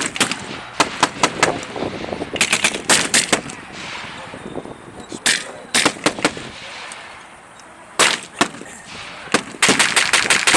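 Blank gunfire from WWII-era weapons: scattered single rifle shots and short rapid machine-gun bursts, with the longest burst near the end.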